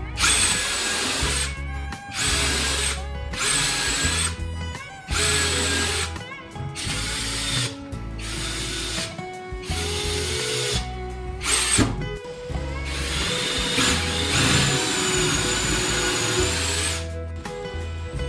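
Handheld electric power tool run in a series of short bursts of about a second each, then one longer run of about four seconds near the end, its high motor whine dipping slightly under load. Background music plays underneath.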